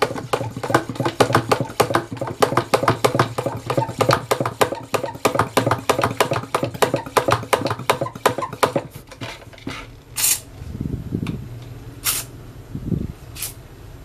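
Plunger of a 2-litre hand pump pressure sprayer being worked up and down fast, about four strokes a second, building air pressure in the bottle. The pumping stops about nine seconds in, and a few sharp clicks follow.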